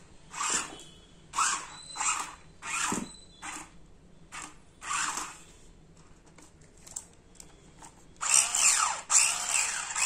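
Atom Max RC stunt car's electric drive motors whirring in about eight short bursts over the first five seconds as the remote's controls are pressed. At about eight seconds they run continuously, the pitch rising and falling as the wheels speed up and slow down.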